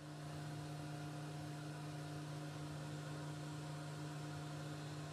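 A steady low hum over a faint hiss, fading in during the first half-second.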